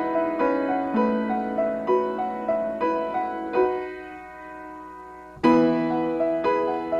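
Solo piano playing a slow melody of single struck notes over sustained chords, about two notes a second. The playing thins and dies away for a couple of seconds, then a loud full chord is struck about five seconds in and the melody carries on.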